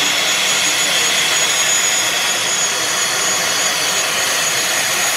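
LIAT turboprop airliner's engines running on the ground, a steady rushing noise with a thin high whine held level throughout.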